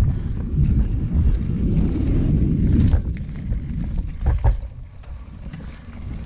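Mountain bike ridden fast along a dirt singletrack: wind buffeting the microphone and tyres rumbling over the trail, with scattered clicks and a few sharp knocks a little past four seconds in, then quieter for the last second or two.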